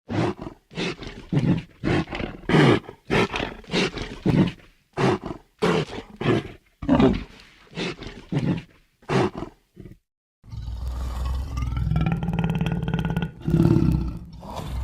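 Cartoon sound effects: a quick run of about twenty short, loud, rough bursts, about two a second. After a brief gap near ten seconds, a steadier sustained sound follows, with a low hum and held tones.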